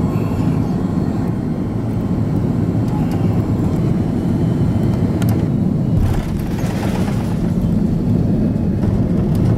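Cabin noise of a jet airliner on final approach and landing: the steady low rumble of its turbofan engines and the airflow. About six seconds in, the noise changes as the wheels touch down and the plane rolls along the runway.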